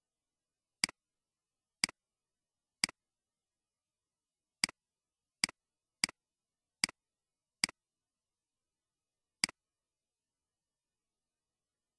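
Nine computer mouse button clicks, each a quick double of press and release: three about a second apart, then a quicker run of five, then one more near the end.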